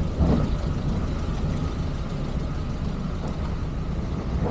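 A car driving along a street: steady low engine and road rumble.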